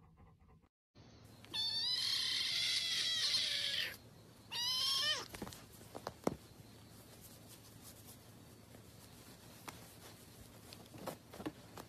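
Kitten mewing: one long, high, wavering mew of about two and a half seconds, then a shorter mew that falls in pitch, followed by faint taps and rustles.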